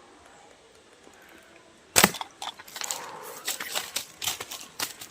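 A slingshot shot at a fish: a sudden sharp snap about two seconds in, then a run of irregular cracks, clicks and knocks.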